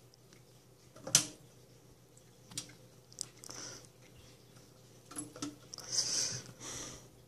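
Faint, scattered splashing and patter of a thin trickle of faucet water on a wet stainless-steel sink as a cat paws at the stream, with a sharp click about a second in.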